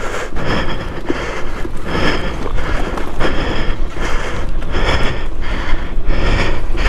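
Rider breathing hard and panting from exertion, about one heavy breath a second, over a low wind rumble on the microphone.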